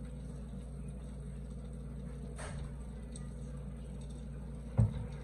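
Steady low hum in a kitchen, with a faint click about halfway through and a single short thump near the end.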